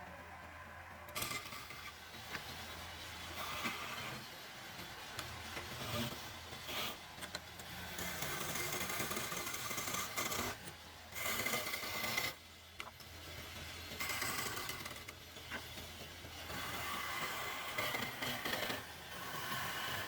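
A tool rasping and scraping on wood in uneven stretches, starting about a second in, with short pauses near the middle.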